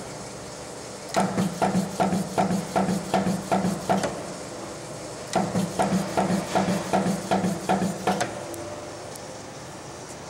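Strippit Custom 18/30 hydraulic punch press nibbling, its ram striking about four times a second in two runs of about three seconds each, with a short pause between. A steady hum continues between the runs and after they stop near the end.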